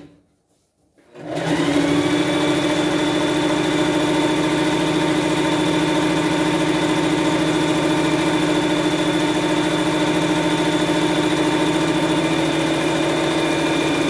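Electric sewing machine running at a steady speed through a long seam. It starts about a second in, speeding up with a rising whine, and slows to a stop near the end.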